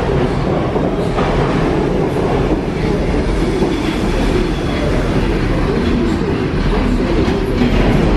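New York City subway train pulling out of the station and running off into the tunnel: a loud, steady rumble of steel wheels with clacking over the rail joints.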